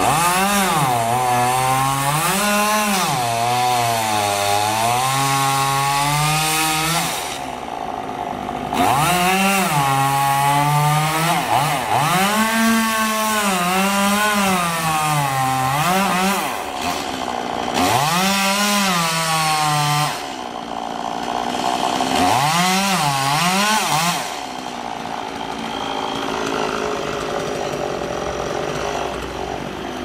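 Chainsaw cutting into a palm tree trunk, its engine pitch swinging up and down as the chain bites, easing back to a lower idle several times, the longest for the last several seconds.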